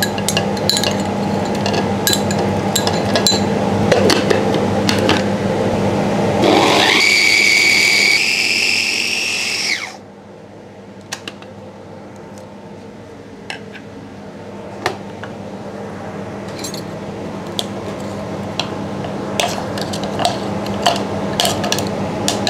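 Electric mini chopper grinding shallot, chilli and garlic: the motor spins up with a rising whine about six seconds in, runs for about three seconds and cuts off suddenly. Before it there is a steady hum with scattered clicks, and after it the sound is quieter with occasional clicks.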